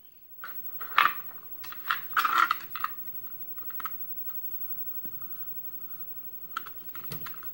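A utility knife and a tape-wrapped key being handled as the blade cuts the tape away from the key: a quick run of sharp clicks and taps in the first few seconds, a faint scraping in the middle, and a couple more clicks near the end.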